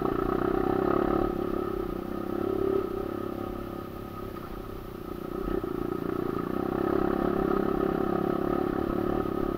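Kawasaki KLX150 trail bike's single-cylinder four-stroke engine running while riding over a rocky trail. The engine eases off a little before halfway and picks up again about two seconds later.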